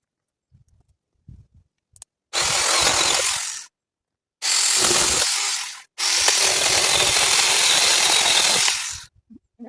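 Handheld power cutting tool run in three short bursts. The first two last about a second and a half each, and the third, started right after the second, runs about three seconds. Each starts and cuts off abruptly, with a few faint knocks before the first.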